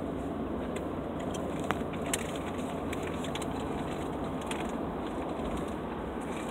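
Steady road and engine noise inside a moving car's cabin, with scattered faint clicks.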